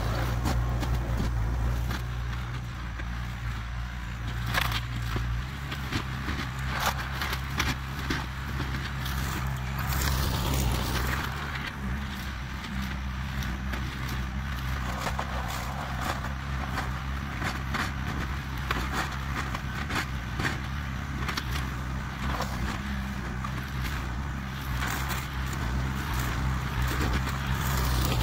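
Compact tractor engine running steadily under load, its low hum shifting in pitch now and then. A front-mounted hydraulic brush cutter crackles and snaps as it chews through brush.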